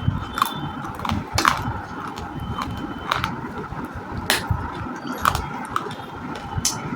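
Close-up crunching of roasted clay chewed and bitten, with sharp dry cracks coming irregularly about once or twice a second.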